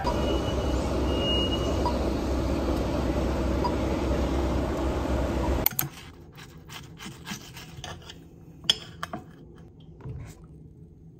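A steady loud background din that cuts off abruptly a little past halfway, followed by a quieter stretch of scattered sharp clinks and taps, one louder clink about three-quarters of the way through.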